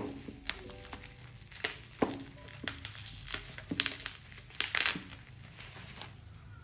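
Thin black plastic wrapping crinkling and crackling as hands pull it off a cylindrical tin. The crackles come in irregular bursts and are loudest about two-thirds of the way through.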